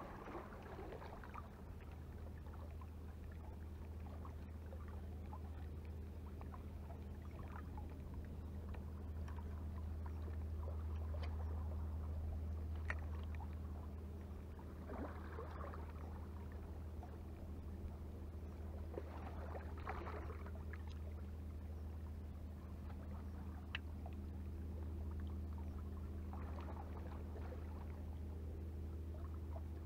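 A steady low motor hum, like an engine running at constant speed, with a few faint short sounds near the middle.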